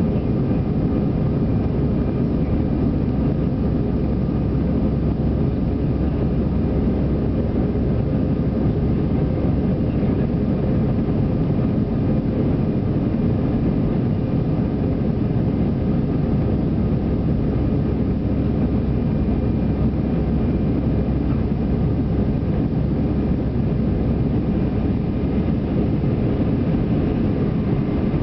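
Steady low rumble of an Airbus A319's jet engines and rushing air, heard inside the passenger cabin as the airliner climbs after take-off, with a faint steady hum over it.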